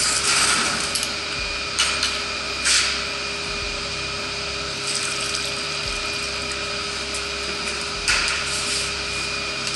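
Water poured from a plastic bucket into a bucket of joint compound to thin it, with a few short clatters of the buckets being handled. A steady hum runs underneath.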